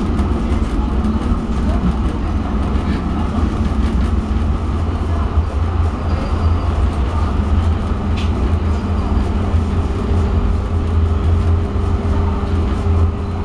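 Cabin noise of TEC light-rail tram 7416 running along street track: a steady low rumble from the running gear. About halfway through, a steady hum sets in and holds.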